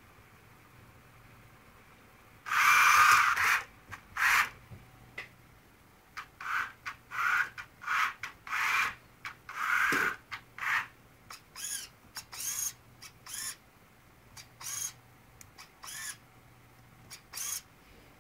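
Small electric drive motors and gearing of a homemade robot tank whirring in a string of short, irregular bursts, each starting and stopping within a second. The loudest burst comes about three seconds in, and several later ones carry a whine that rises and falls in pitch.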